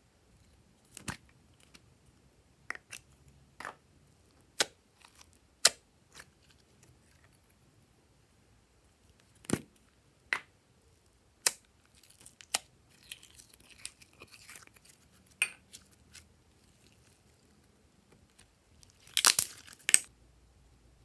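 Wet, sticky clicks and pops of slime being poured and handled, scattered singly through the first half. A soft crackling stretch follows a little past the middle, and near the end comes a loud cluster of pops as hands press a lump of glitter slime into the tray of slime.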